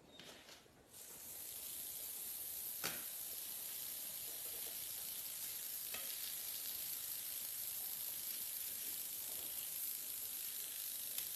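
A steady hiss starts about a second in and holds evenly, with a sharp click a couple of seconds later and a fainter one a few seconds after that.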